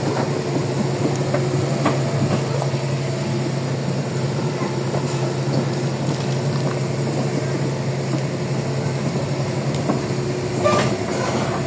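Crawler excavator travelling on its steel tracks: a steady diesel engine drone with scattered clanks from the tracks, and a louder clatter near the end.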